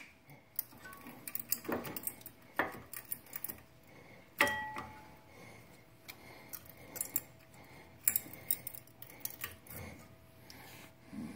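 Scattered metallic clicks and clinks of brake pads and caliper hardware being handled and slid out, with one ringing metal clink about four and a half seconds in.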